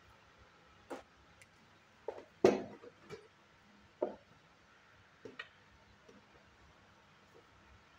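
Spot welding a 21700 lithium-ion cell pack with a handheld two-probe pen: a few sharp snaps, the loudest about two and a half seconds in. Lighter clicks and knocks follow as the probe leads are lifted off and handled.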